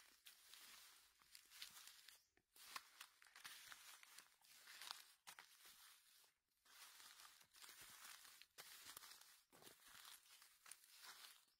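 Faint crackling and rustling of dry fallen oak leaves being trodden on and disturbed, coming in uneven bursts with short pauses between them.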